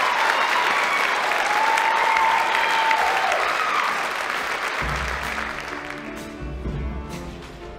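Audience applause and cheering with high whoops, fading out. About five seconds in, instrumental music with a bass line starts up.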